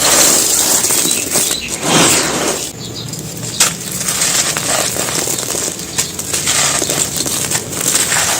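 Dry, gritty handmade cement cups and balls being crushed and crumbled: dense crunching and crackling with sharp snaps, easing off a little about three seconds in.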